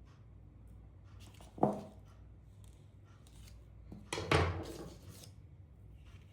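Small metal parts and tools clinking and scraping as an optical encoder is taken apart: a sharp clink about a second and a half in, then a louder clatter with a short ring a little after four seconds. A faint steady low hum lies underneath.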